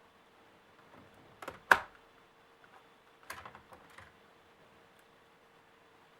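Sharp clicks and taps of laptop parts being handled during disassembly: two about one and a half seconds in, the loudest just after, then a short run of lighter clicks around three to four seconds in.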